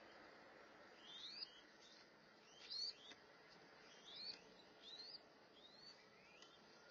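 Mourning dove chicks making faint, short, high rising 'thweet' calls, about one a second. These are their begging calls while a parent feeds them.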